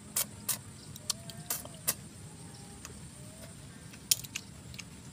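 Sharp sucking slurps as the meat of paddy-field snails (tutut) in broth is sucked out of the shells, about six short clicks, most in the first two seconds and one more near the end.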